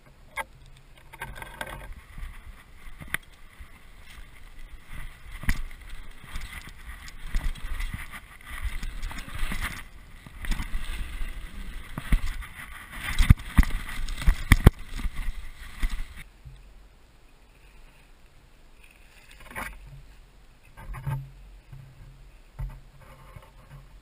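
Mountain bike ridden over a dirt jump trail, heard from a camera mounted on the bike: tyres rolling on packed dirt with knocks and rattles from the bike over the bumps. The sound builds, is loudest a little past halfway, then drops off suddenly to a quieter stretch with a few single thumps.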